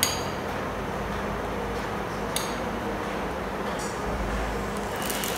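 A metal spoon clinking against small ceramic bowls while fried-shallot oil is spooned out. There is a sharp clink at the start, another about two and a half seconds in, and a fainter tap near four seconds, over a steady low hum.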